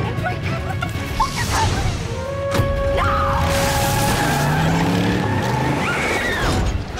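Background music with held tones and gliding pitches, a sharp click a little past two and a half seconds in, and a brief crash-like rush of noise at about three and a half seconds.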